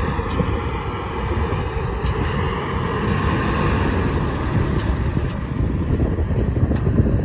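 Heavy diesel engines running steadily as a JCB JS205 excavator loads an Ashok Leyland tipper truck, with a faint whine that wavers up and down. Wind rumbles on the microphone throughout.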